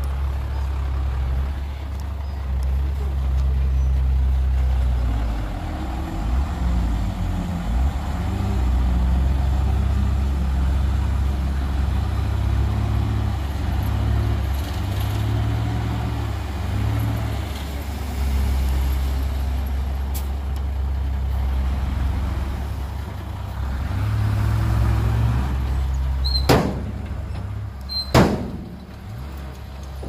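Heavy diesel earthmoving machinery running, its engine revs rising and falling as it works. Near the end come two sharp knocks about two seconds apart.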